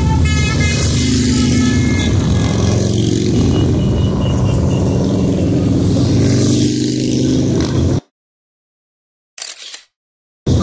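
Motorcycle engines running steadily as a procession of motorcycles rides past. The sound cuts off abruptly about eight seconds in, with a brief faint blip during the silence, and resumes just at the end.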